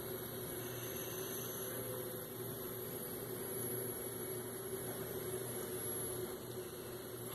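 Faint steady hum with a soft hiss, unchanging throughout.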